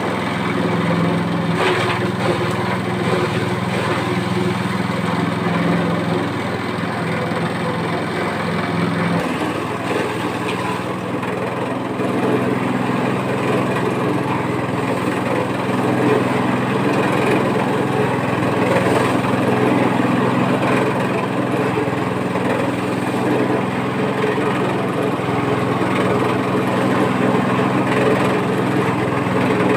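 Honda GX200 small single-cylinder four-stroke engine running steadily. Its note shifts about nine seconds in, and it runs a little louder from about twelve seconds.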